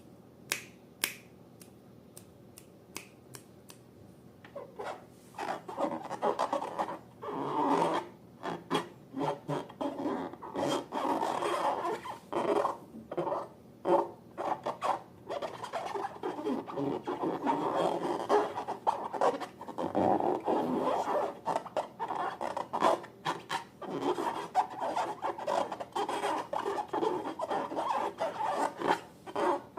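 Slime being worked by hand or stirred, making a dense run of sticky clicks and rubbing, scraping noises that start about four seconds in, after a few isolated clicks.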